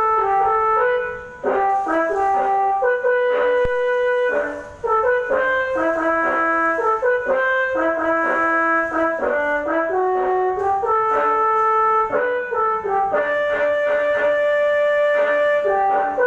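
Tour bus telolet horn, a multi-trumpet air horn, playing a song melody in held, stepped notes, often several at once, with two short breaks about one and four and a half seconds in.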